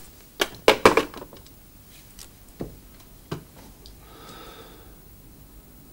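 Desk telephone handset being put down on its cradle: a quick run of hard plastic clacks about half a second to a second in, then a couple of lighter knocks.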